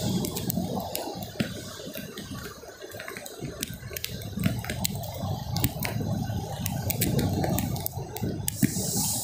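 Small surf breaking and washing up a flat sandy beach, a continuous uneven rushing, with many scattered sharp clicks throughout.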